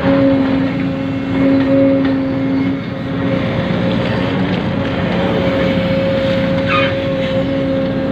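Radio-controlled construction model running: a steady electric-motor and gear whine over a rattling mechanical hiss, the pitch dropping slightly about three seconds in.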